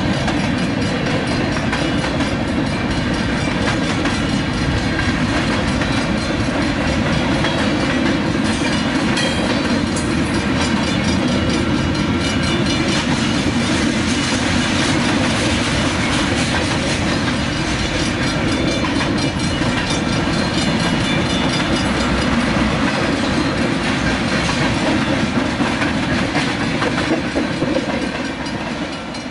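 Freight train rolling steadily past at speed, its wheels running on the rails under a long string of freight cars; near the end the last cars pass and the sound begins to fall away.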